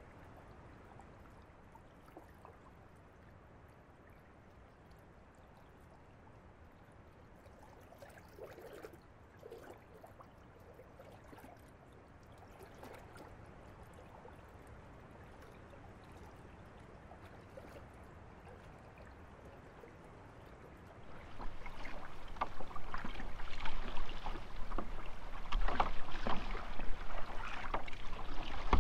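Kayak on a lake: soft water trickling and lapping against the hull, then about three-quarters of the way in, louder irregular splashing of paddle strokes, with wind rumbling on the microphone.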